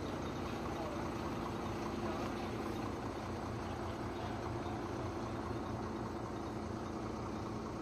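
Ashok Leyland truck's diesel engine idling steadily, a low even rumble.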